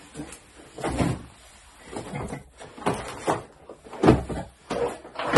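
Boxes and tools being handled and set down: a run of separate knocks and bumps, about half a dozen, with the heaviest thumps about four seconds in and near the end.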